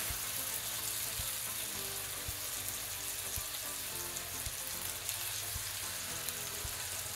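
Seasoned chicken breasts sizzling steadily in hot oil in a stainless-steel skillet as more pieces are laid into the pan.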